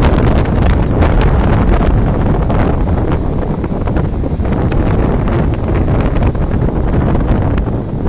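Strong storm wind buffeting the microphone: a loud, continuous low rumble with crackling gusts, over the sound of heavy surf breaking on the beach.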